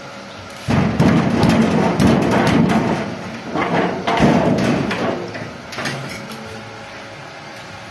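Sheet-steel door rattling and scraping as its newly fitted brass night latch is worked and the door is swung. The dense metal clatter starts about a second in, lasts about four seconds, then dies away.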